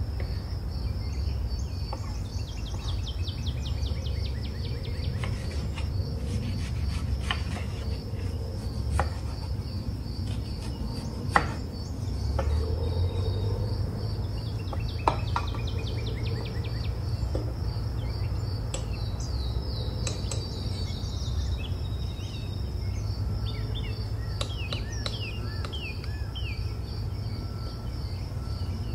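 Crickets chirping steadily, with bird calls coming in now and then as runs of falling chirps. A few sharp taps of a chef's knife striking a bamboo cutting board stand out, the loudest about eleven and fifteen seconds in.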